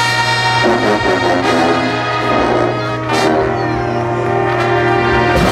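Marching band playing loud, sustained brass chords that change pitch a few times, with a percussion hit about three seconds in.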